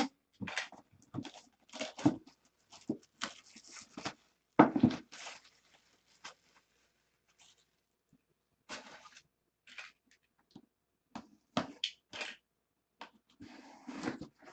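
Packaging being torn open and handled: irregular bursts of tearing, crinkling and scraping, with a quiet pause of about two seconds near the middle.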